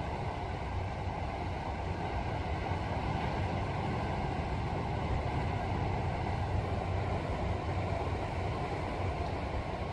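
Steady seaside ambience: a low, even rumble of wind on the microphone over the wash of surf, with no distinct events.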